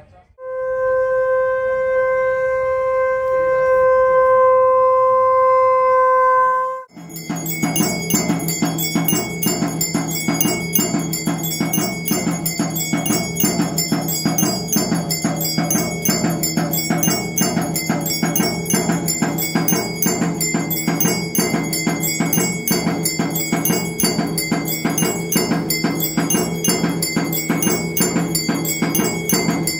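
A conch shell (shankha) blown in one long, steady note for about six seconds during a Hindu temple aarti. It cuts off, and rapid, rhythmic ringing of temple bells and clanging metal percussion follows.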